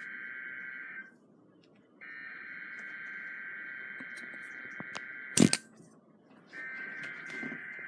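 NOAA Weather Radio's SAME digital header: a buzzy two-tone data warble at about 1.5 and 2 kHz, sent in bursts with pauses of about a second between them, marking the start of the weekly alarm test. One sharp, loud click comes about five and a half seconds in.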